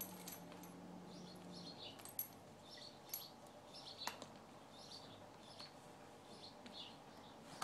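Faint, repeated short chirps of small birds, one or two a second, with a few light clicks in between.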